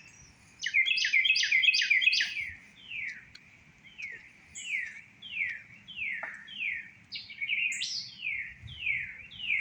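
A songbird singing: a quick run of clear notes, then a long series of whistled notes that each slide downward, about one every three-quarters of a second.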